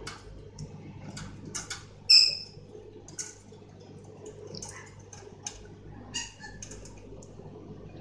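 Budgerigars calling: a string of short, high, scratchy chirps and chatter, with one loud, clear chirp about two seconds in.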